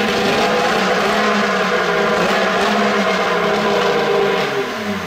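Engine of a partly built two-stroke side-by-side running in the shop, its revs wavering and then falling away near the end as it winds down.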